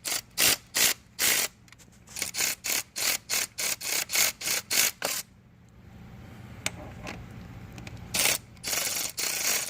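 Hand ratchet clicking in short rasps, about three a second, as it turns a drill bit by hand to drill out a stripped head-bolt thread in the engine block. The clicking pauses for about three seconds past the middle and starts again near the end.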